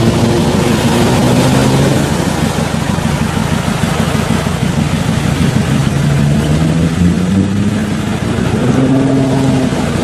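Off-road 4x4's engine revving, its pitch climbing in the second half and rising again near the end, over a steady wash of noise.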